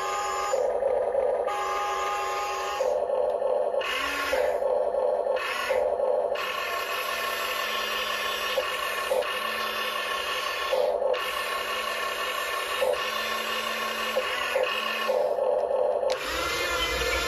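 Diecast Masters 1:24 RC Cat 336 excavator's built-in sound kit playing engine noise through its small speaker. The sound switches back and forth several times in the first six seconds, then runs in longer stretches. Under it is the whine of the model's small electric motors as they drive the boom and bucket.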